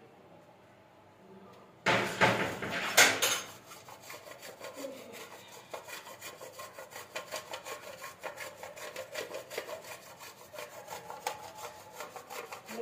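Hand grating on a metal box grater: a louder burst of scraping about two seconds in, then a steady run of quick rasping strokes.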